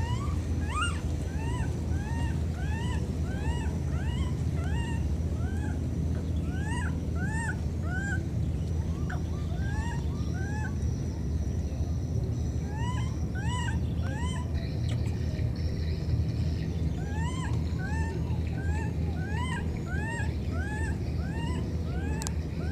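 A baby monkey crying: short squealing calls that rise and fall, about two or three a second, coming in bouts with brief pauses between.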